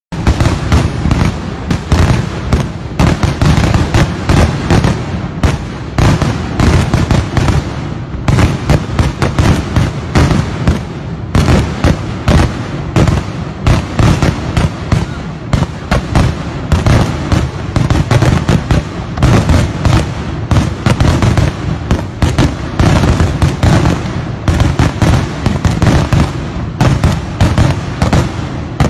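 Daytime aerial firework shells exploding in a rapid, continuous barrage, many loud bangs a second overlapping with no pause.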